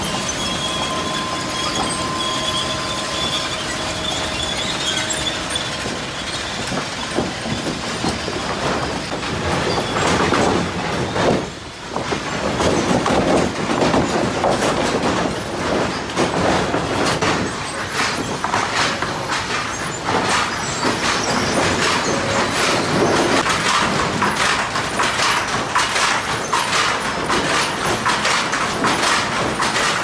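Sawmill lumber-handling machinery running: steel chain transfer conveyors rattle and softwood boards clatter against each other and the steel, with many sharp knocks. A faint steady whine sounds in the first few seconds, and the din drops off briefly just before the middle.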